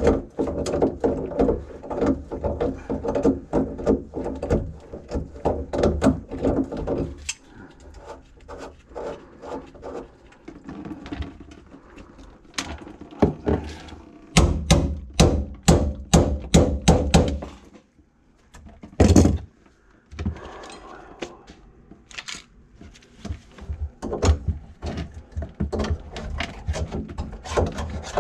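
Irregular knocks and thunks from work under a kitchen sink: gloved hands clearing grease from the drain pipe into a plastic bucket. A quick run of about a dozen knocks comes a little past halfway, then one louder knock.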